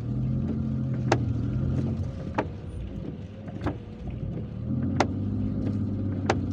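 Inside a moving car, the engine hums low and steady while the old windshield wipers knock at the end of each sweep, about once every 1.3 seconds.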